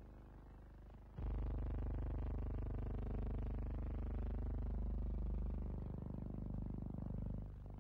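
Motorcycle engines running steadily, with a sudden step up in loudness about a second in.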